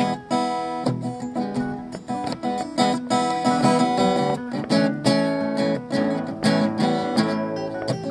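Acoustic guitar playing chords and notes in a quick, steady rhythm.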